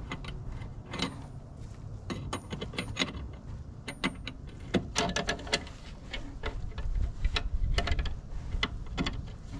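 Irregular metallic clicks and clinks of a wrench working the brake line flare nuts into a new master cylinder, over a low steady rumble.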